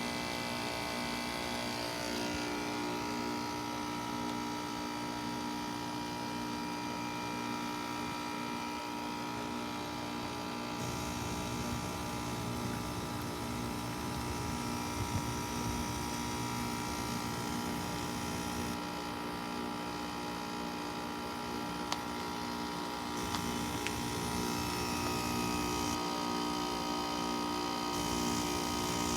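Bryant Legacy Line heat pump outdoor unit running with a steady hum and several fixed whining tones.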